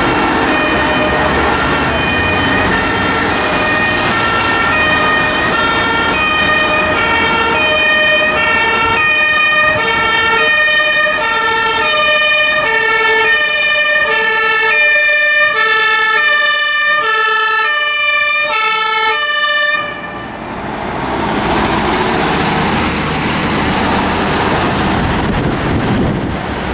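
German two-tone fire-engine siren (Martinshorn) on a MAN fire-brigade truck, alternating steadily between its two notes. It cuts off suddenly about 20 seconds in, and a steady rush of traffic and wind noise follows.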